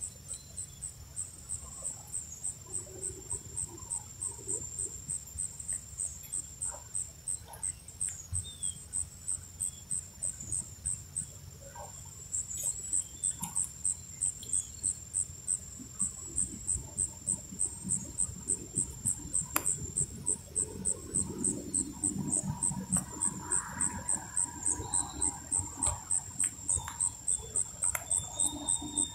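An insect chirping steadily in a high-pitched, even rhythm, about three chirps a second, with a short break near the middle. A few faint taps come from a crow pecking seed off a wooden stump.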